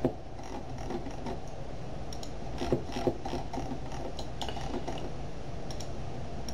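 Computer mouse clicking and its scroll wheel ticking as edges are selected and the view is zoomed, a few scattered clicks over a steady low hum.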